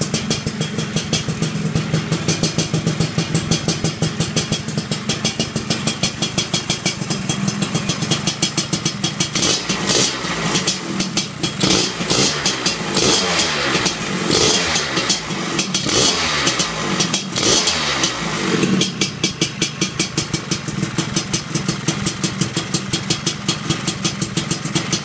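Lambretta scooter's TS1 225 kit two-stroke engine, with a Dellorto 30 mm carburettor, running on its first start-up. It idles with an even beat, is revved up and down repeatedly for about ten seconds in the middle, then settles back to idle.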